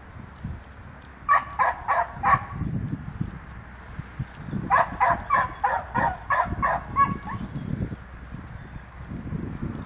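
A dog barking in quick runs of short, sharp barks, about three a second. There is a run of about four barks a little over a second in, then a longer run of about nine from around five seconds in.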